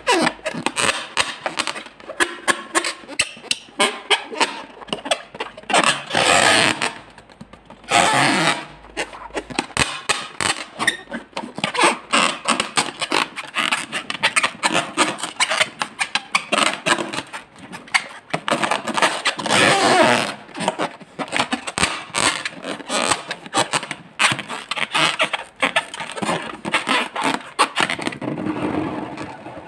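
Fingers rubbing and squeezing an inflated latex balloon: a dense run of irregular rubbing squeaks, with a few louder stretches.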